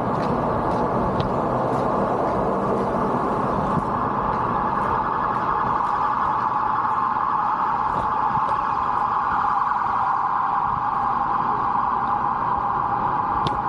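Busy city street traffic noise with a loud, even mechanical hum.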